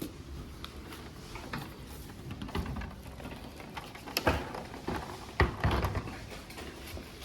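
Scattered light clicks and knocks of handling, with a few sharper knocks past the middle over a low steady hum.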